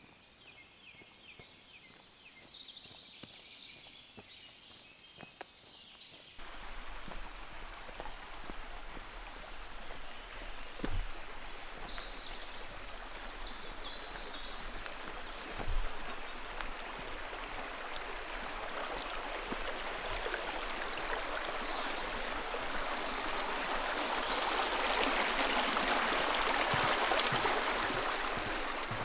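Quiet forest ambience with a few high bird chirps, cut off about six seconds in by the steady rushing of a brook, which grows louder toward the end; a few more bird chirps sound over the water.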